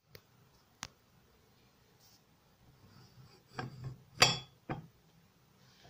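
Light metallic clinks and knocks from handling the rack and pinion mechanism inside a controllable-pitch propeller hub. One faint click comes about a second in, then three sharper ones around four seconds in, the middle one loudest.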